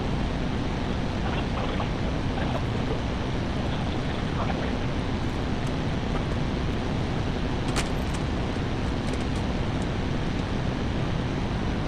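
A telehandler's engine running steadily with a low hum, and a sharp metallic click about eight seconds in.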